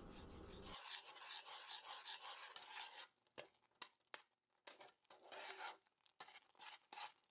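Metal spoon stirring and scraping a thick paste of toasted semolina, butter and honey in a pot. Faint, irregular rasping strokes with short pauses between them.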